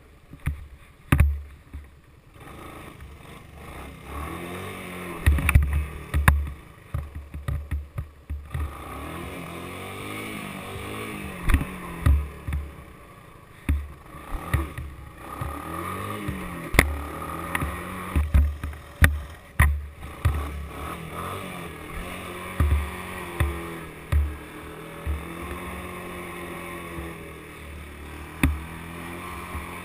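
Honda three-wheeler's engine, heard from the rider's head, revving up and down in repeated surges as it is ridden over rough grass. Frequent heavy low thumps and sharp knocks come through with it as the machine and camera are jolted.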